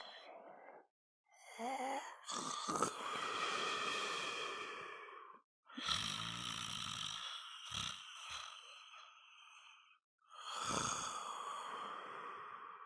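Sleeping dog snoring: a short breath, then three long snores with a whistling tone, a few seconds apart.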